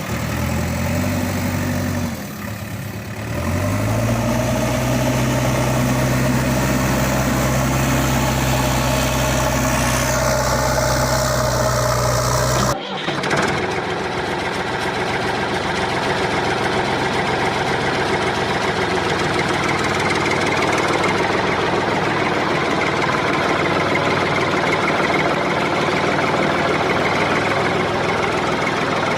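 Heavy diesel machinery engines running with a deep steady hum that drops and climbs back about two to four seconds in. About thirteen seconds in the sound cuts abruptly to a steady, noisier engine sound without the deep hum.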